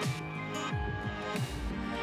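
Background electronic music with a steady beat: a deep kick drum about every two-thirds of a second and a sharp hit about every second and a third, over sustained synth tones.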